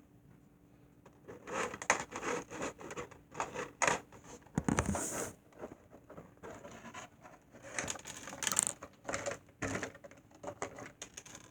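Handling of a toy's plastic packaging and small plastic accessories: irregular scratching, rustling and clicks.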